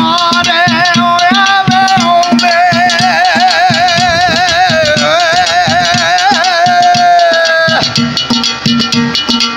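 A man singing one long drawn-out note with a heavy vibrato in Punjabi folk style, over steady hand-drumming on an upturned aluminium cooking pot and strokes on a clay pot. The voice drops out near the end and the pot percussion carries on alone.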